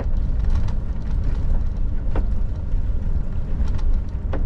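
Low, steady rumble of a Scania truck heard from inside the cab as it rolls slowly down a snowy, icy mountain road on light braking. A few light clicks and knocks sound through it.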